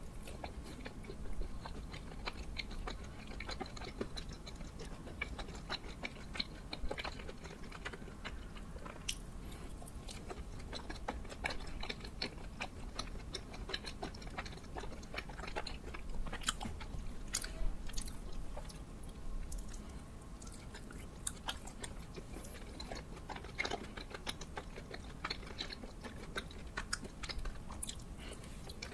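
Chewing of soft, sticky glutinous rice cakes (chapssaltteok) filled with red bean paste, butter and cream, with many short, sharp mouth clicks and smacks.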